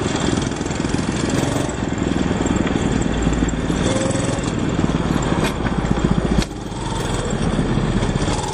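Go-kart's small engine running hard as the kart passes close by, with a sudden drop in level about six and a half seconds in.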